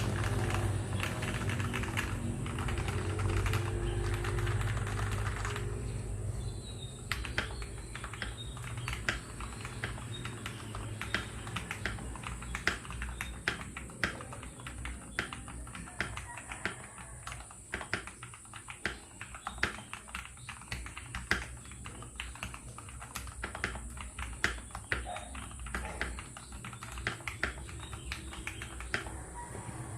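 Mechanical keyboard being typed on: irregular, fairly fast key clicks that start about seven seconds in. Before that, a louder pitched background sound with a low steady hum underneath.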